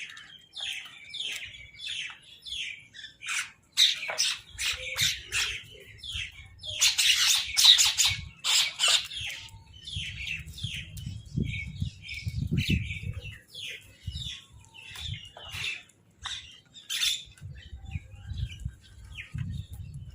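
Several crows calling at once, short harsh caws overlapping in quick succession, densest about seven to nine seconds in, over a low rumble.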